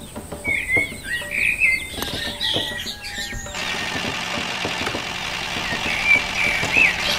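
Small birds chirping in short, curling calls, in a cluster during the first few seconds and again near the end, over faint scattered ticks.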